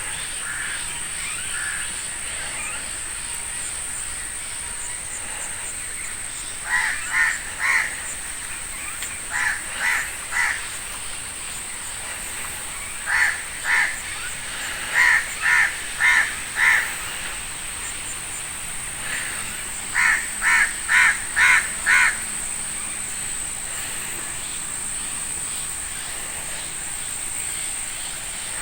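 A crow cawing in bursts of three to five harsh caws, repeated about five times a few seconds apart, over a steady high-pitched whine.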